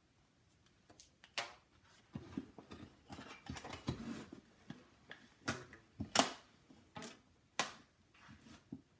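Rubber bands being stretched around a small wooden box to clamp a freshly glued joint: a few sharp snaps of band against wood, the loudest about six seconds in, with soft rustling and handling of the box between them.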